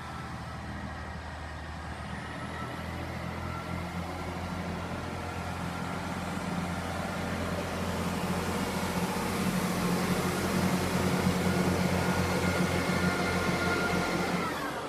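Class 158 diesel multiple unit pulling away from the platform and accelerating past, its underfloor diesel engines working under power with a steady low drone and a higher whine that rises in pitch. It grows louder as the cars pass, then drops away suddenly near the end.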